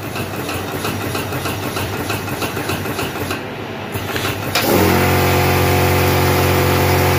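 Vibratory bowl feeder for micro-USB charging pins switching on with a sudden steady electric buzz about four and a half seconds in. Its sensor has restarted the feed because the pins on the track have run low. Before that, machinery ticks lightly and evenly.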